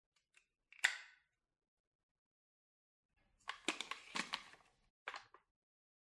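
Plastic parts of a Dyson cordless vacuum's cleaner head being refitted: the brush bar's end cap and the bar clicking into place. One sharp click about a second in, a cluster of clicks and rattles a few seconds later, and a last short click near the end.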